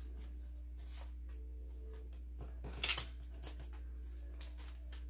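Paper dollar bills being counted by hand: soft rustles and flicks as notes are peeled off the stack one at a time, with a louder cluster of flicks about three seconds in. A steady low hum runs underneath.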